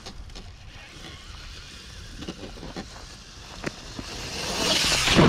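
Traxxas TRX-4 RC truck driving over dirt and pine needles: its motor and tyres are faint at first, then swell over the last second or so as it nears, with scattered light clicks throughout.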